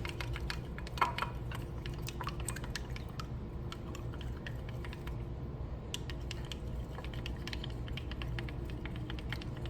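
Hot cooking oil crackling and spitting in a makeshift wok as it heats, a dense run of small irregular pops over a steady low hum.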